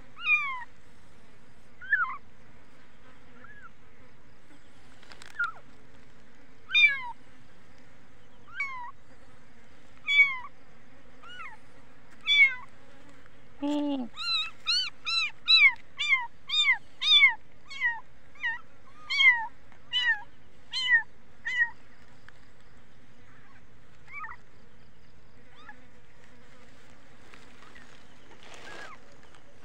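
Kitten mewing: short, high-pitched cries, one every second or two at first, then coming quickly at about two a second for several seconds around the middle, then dying away to a few faint mews.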